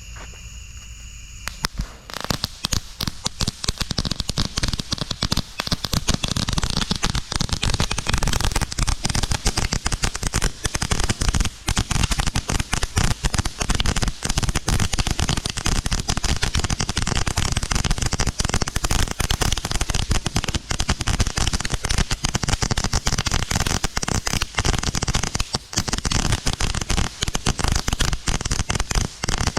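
Two June bug fireworks going off together: a dense, rapid, continuous crackling that starts about two seconds in and keeps going without a break.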